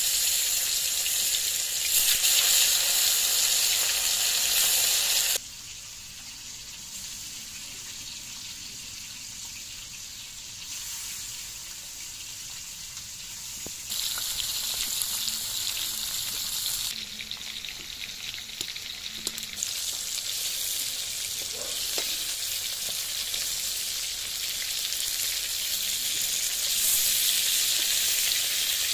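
Katla fish pieces coated in turmeric sizzling as they fry in hot oil in an iron kadai: a steady high hiss. It drops sharply about five seconds in and grows louder again around fourteen seconds.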